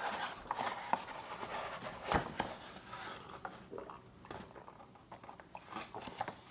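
Paper bag crinkling and a stainless-steel Klean Kanteen tumbler being handled as it is worked up under the bag to drink, a run of small rustles and clicks with one sharper knock about two seconds in.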